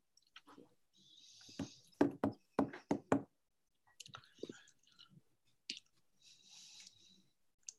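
A quick run of about six knocks and taps between two and three seconds in, with short hissing rustles before and after them.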